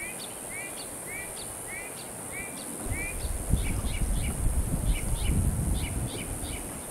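A bird calling: a run of short, arched chirps about two a second, followed by quicker, higher chirps. About three seconds in, a low rumbling noise comes in underneath and stays.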